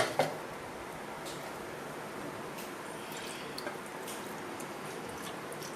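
Two sharp knocks right at the start, then soft drips and trickles of liquid over a steady low hiss as tamarind water is added to the sambar.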